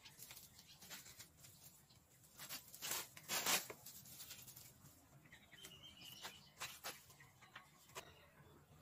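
Rustling and scraping of dry cut grass and leaves being worked over, scattered and irregular, with a louder stretch of rustling about three seconds in.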